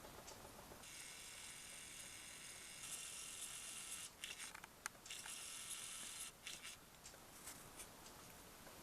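Faint, high whirring of a camera's zoom motor, starting about a second in and stopping and restarting several times over the next six seconds.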